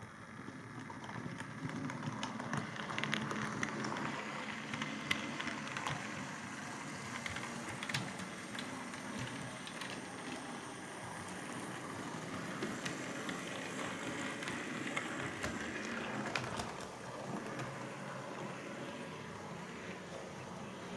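Model Class 57 diesel locomotive running on the layout's track: a steady whirr of its motor and wheels with scattered light clicks, growing louder over the first couple of seconds.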